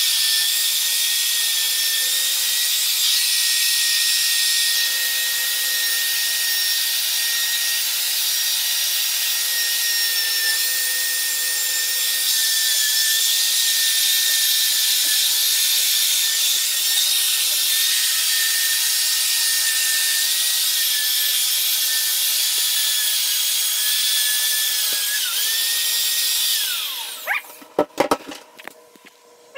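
Electric drill spinning a nylon brush attachment against glass mosaic tile: a steady motor whine over the hiss of the bristles scrubbing dried grout off the tile. Near the end the drill winds down and stops, followed by a few clicks and knocks.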